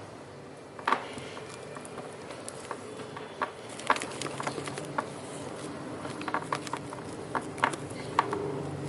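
Kitchen utensils and containers being handled: a scattered series of light clicks and taps, with one sharper knock about a second in and a busier run of taps through the middle and latter part.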